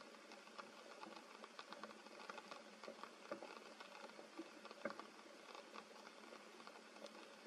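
Rain falling on forest leaves: a faint steady hiss full of small irregular drop ticks, with a couple of slightly louder drops around three and five seconds in.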